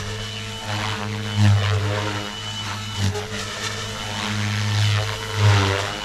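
XLPower Protos 380 electric RC helicopter in flight: a steady rotor and motor hum that swells and fades several times, with whooshing sweeps from the blades.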